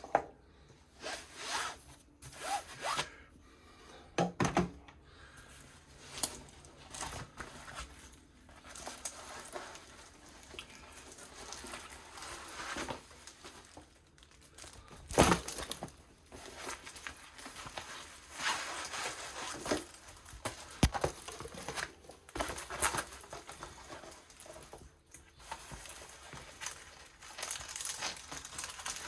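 Crinkling and rustling as rolled diamond-painting canvases and their plastic storage tubes are handled, with irregular clicks and knocks scattered throughout; the loudest knock comes about fifteen seconds in.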